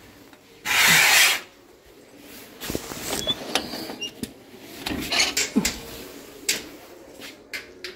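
A loud rubbing rush about a second in, as cloth brushes against a phone's microphone while it is handled, then scattered clicks and knocks of a door with a metal latch and mesh screen being opened.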